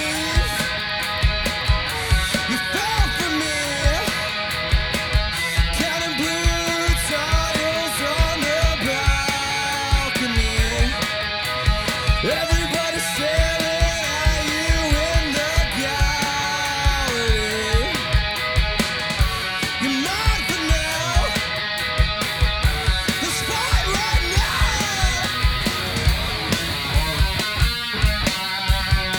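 A two-piece band plays punk rock live on electric guitar and drum kit, with steady drum hits under a melody that bends up and down.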